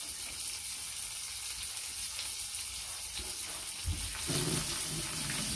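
Food frying in a pan on the hob, a steady sizzling hiss.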